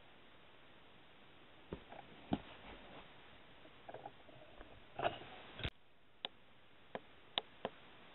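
Handling noise from unboxing: a scatter of irregular sharp clicks, taps and brief rustles as the DVD case and packaging are handled, starting a couple of seconds in.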